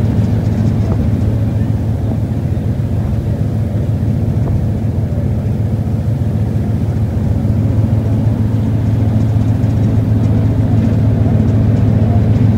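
River cruise boat's engine running with a steady low drone, growing slightly louder over the second half.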